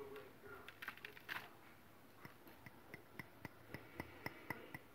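Light tapping on a glass beaker to shake dried gold powder out onto paper on a pocket scale. A few scattered clicks about a second in, then a run of faint, even taps, about four a second.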